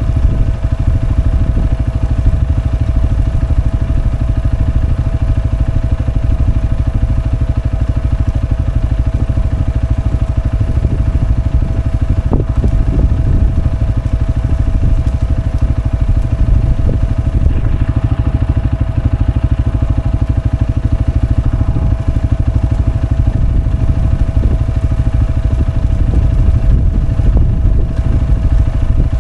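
Farm vehicle engine running steadily at a constant pace, a deep rumble with a thin, steady whine above it.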